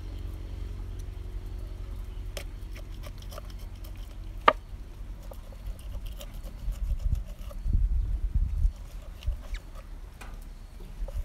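A kitchen knife scraping and slitting a snakehead fish on a wooden chopping board: small scrapes and clicks, one sharp click about halfway through, and dull knocks in the second half. A faint low hum lies under the first half.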